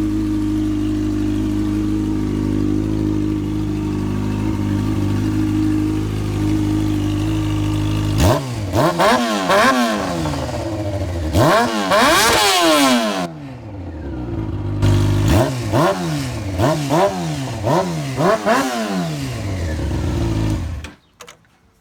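Motorcycle engine running at a steady idle, then revved up and down repeatedly in quick throttle blips. It shuts off suddenly near the end.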